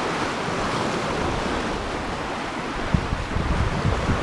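Sea surf washing against shoreline rocks in a steady rush, with wind buffeting the microphone in low gusts from about three seconds in.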